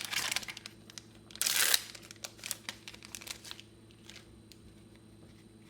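Foil booster pack of trading cards being torn open and crinkled, with one loud tear about a second and a half in, followed by a few light rustles and clicks that die away after about three and a half seconds.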